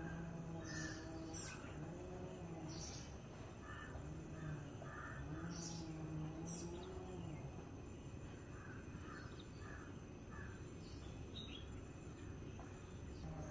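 Several birds calling: short high chirps scattered through, and runs of repeated lower calls, over a steady background hiss. A low wavering hum is heard through the first half.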